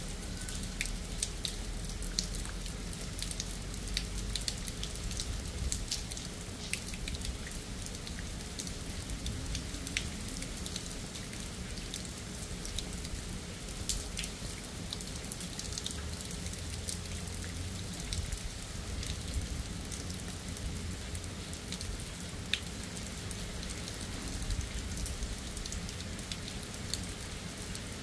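Steady rain falling, with many sharp drops ticking close by throughout, over a faint low rumble and a thin steady hum.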